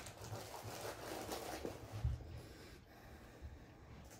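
Soft rustling of hands digging in a fabric treat pouch, with a few soft low thumps.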